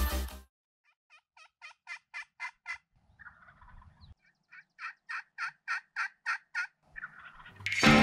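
Wild turkey yelping: a short run of evenly spaced yelps, about four a second and getting louder, then a longer run after a brief pause with a faint rustle between. Music cuts out at the start and comes back in just before the end.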